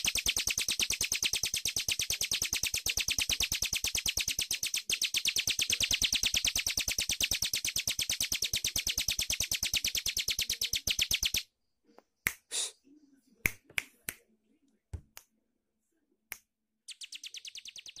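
Ciblek gunung, a prinia, calling in a fast, even series of sharp ticking notes, several a second. The series stops suddenly about eleven seconds in. A few single ticks follow, and a fainter run starts again near the end.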